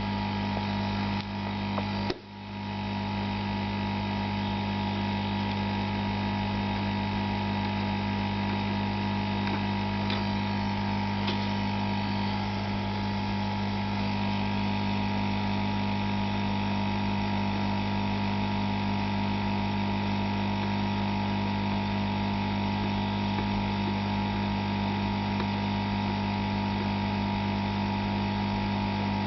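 Steady electrical hum with a low buzz and a higher steady tone, briefly dropping away about two seconds in and then carrying on unchanged.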